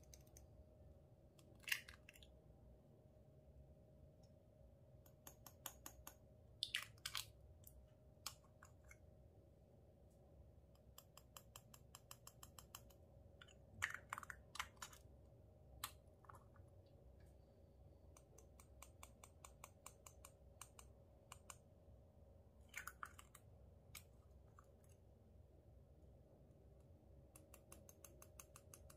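Stacked plastic glitter jars being handled, unscrewed tier by tier and tapped out. Runs of quick, light plastic clicks from the screw threads and tapping, with a few sharper knocks of the plastic pieces.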